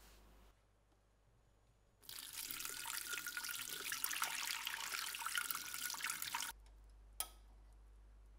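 Running water splashing, as from a tap, for about four and a half seconds, starting and stopping abruptly; a single sharp click follows.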